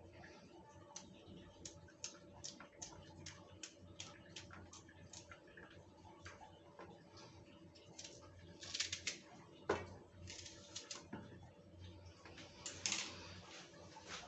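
Faint small clicks and taps of fingers and a knife working garlic and an onion on a steel plate: a run of quick ticks for the first few seconds while peeling, then a few louder clinks of the knife on the steel as the onion is cut, the sharpest about ten seconds in.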